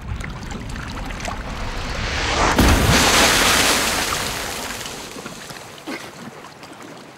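Water splashing: a loud rush of splashing water about two and a half seconds in, fading away over the next few seconds, over a low rumble of sea and wind. A few small splutters follow near the end.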